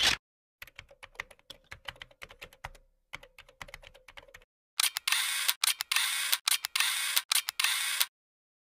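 End-screen sound effects: a short whoosh, then fast light clicking, several clicks a second, for about four seconds. Then comes a louder run of clattering clicks for about three seconds, which stops abruptly about a second before the end.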